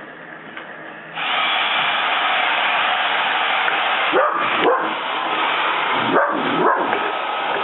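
A vacuum cleaner's motor cuts in loud about a second in and keeps running. A dachshund barks over it four times, in two quick pairs.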